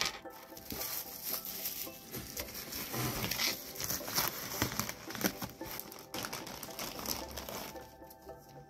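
Crinkling and rustling of plastic packaging being handled: bubble-wrap pin pouches, a padded bubble mailer and a clear zip-top bag, in irregular bursts that thin out near the end.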